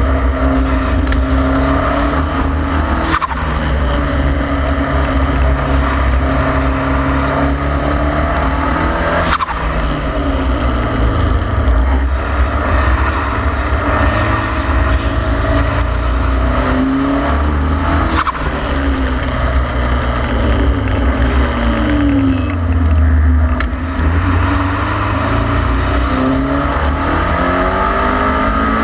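KTM X-Bow's turbocharged four-cylinder engine under load at speed, its note climbing through the revs and breaking sharply at each gear change, then falling as it slows for corners. There is a steady rush of wind and road noise around the open cockpit.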